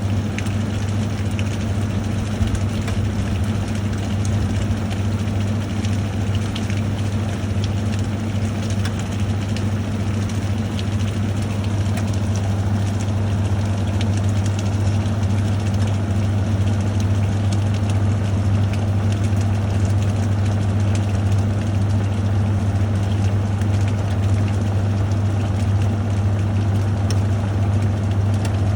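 National NA9450PN pulsator washing machine spinning at speed, a steady motor hum and whir of the tub, reckoned at about 750 to 800 rpm.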